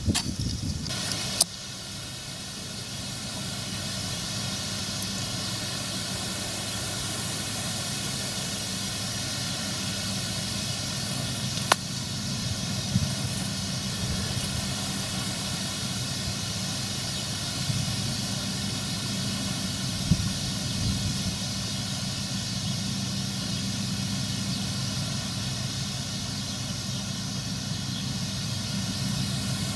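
New Holland combine harvester running under load while cutting and threshing grain: a steady machine drone with a high whine over it, growing a little louder in the first few seconds as it comes closer. A single sharp click about twelve seconds in.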